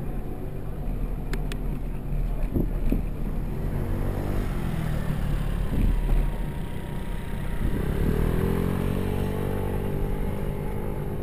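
Road traffic with a steady low rumble. About eight seconds in, a motor vehicle engine accelerates and rises in pitch.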